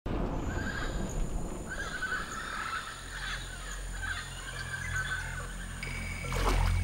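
Rainforest wildlife calls: repeated warbling cries over a steady thin high insect buzz. Near the end a low musical drone swells in with a whoosh.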